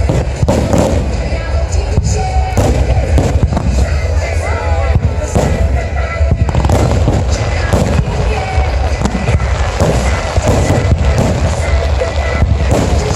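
Fireworks display: aerial shells bursting in quick, uneven succession, many sharp reports a second over a continuous low rumble.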